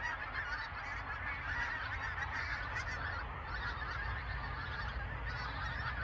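A large flock of pink-footed geese calling in flight overhead: a continuous chorus of many overlapping calls.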